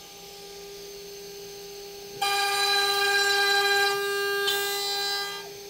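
CNC router spindle with a 12 mm HSS end mill whining at speed. About two seconds in, it plunges into the wood and a louder, many-toned whine under load lasts about three seconds. The cut leaves burn marks: the spindle speed is too high for this boring, and the operator then turns it down.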